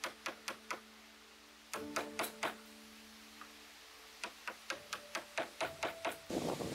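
A Stanley wood chisel being struck with quick, sharp taps in short runs of about four or five a second, chopping out the waste between saw kerfs to cut a notch in a pine board. Near the end there is a louder, rougher crunch as the chips break away.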